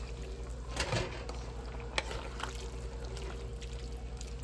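Pork igado cooking in a pan: a steady sizzle of meat and liquid, with a utensil knocking against the pan about a second in and again at two seconds.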